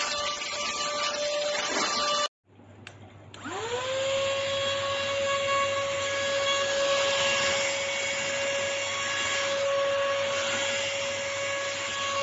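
Philips cordless stick vacuum cleaner running with a steady whine and rush of air. The sound cuts out abruptly about two seconds in. About a second later the motor starts again, its whine rising quickly as it spins up and then settling to a steady pitch.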